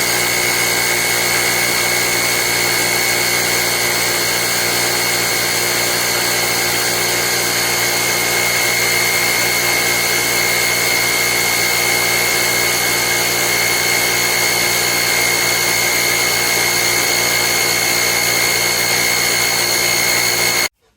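Portable jump starter's built-in air compressor running steadily with a constant whine while inflating a car tyre, then stopping abruptly near the end.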